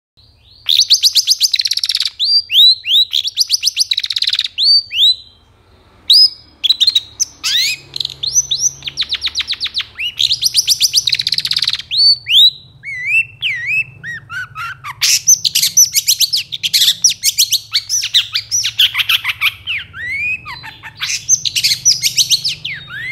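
Long-tailed shrike (cendet) singing in full voice: loud phrases of fast, harsh chattering trills mixed with sharp downslurred notes, with a brief pause about five seconds in. A faint steady low hum runs underneath.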